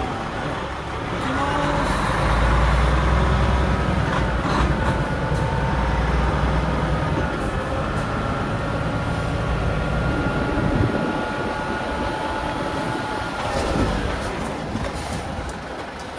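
Heavy truck's diesel engine pulling hard as the tractor-trailer reverses up a steep slope, with a deep rumble and a steady whine that build about two seconds in and ease off shortly before the end.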